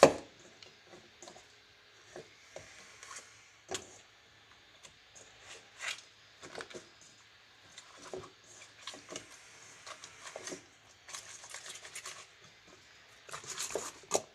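Scattered light knocks and clicks of kitchen utensils and bowls being handled during food preparation, with one sharp knock at the very start.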